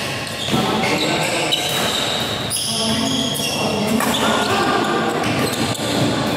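Badminton doubles rally: rackets striking the shuttlecock with sharp clicks, and players' shoes moving on the court, with voices in the background.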